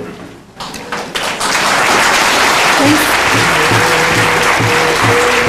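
An audience clapping, swelling up a little over a second in and carrying on steadily. Under it is background music with a regular bass beat, which drops out briefly at the start and comes back about halfway through.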